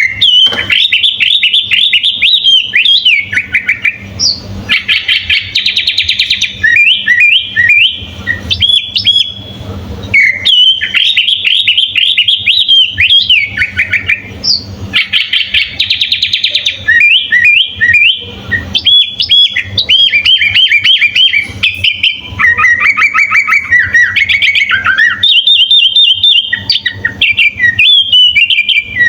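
Sooty-headed bulbul (kutilang) singing a loud, fast run of chirped and whistled phrases, the notes repeated in quick trills, with short pauses between bursts.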